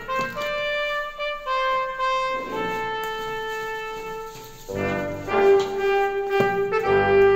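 Background music: a melody of held notes stepping up and down in pitch, growing fuller and louder about two-thirds of the way through.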